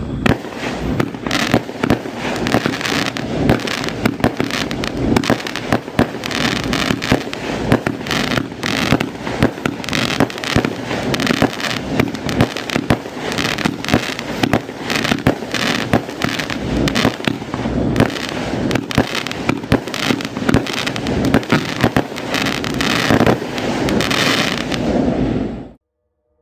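Oriental Fireworks 'Blazing Koi' consumer firework going off: a dense, continuous run of sharp shots and crackling bursts for about 26 seconds, stopping abruptly near the end.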